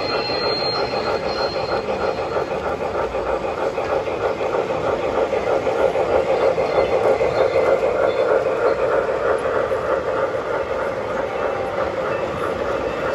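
MTH Premier O-scale PRR Q-2 4-4-6-4 model steam locomotive running, its Proto-Sound 2 sound system playing a steady, rapid steam-chuffing rhythm over the running noise of the model on the track. The chuffing grows a little louder in the middle.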